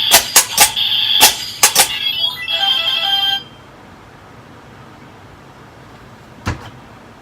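Electronic sound effects from a Kamen Rider Build DX transformation toy's speaker: rapid sharp bursts, then a short stepped tonal jingle that cuts off about three seconds in. A single click follows about six seconds in.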